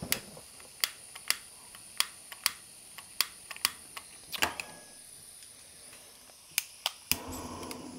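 Repeated sharp clicks of a piezo click lighter being triggered at the burner of a portable gas camping stove, about a dozen at uneven spacing while the gas fails to catch. About seven seconds in, the burner lights and runs on with a steady hiss.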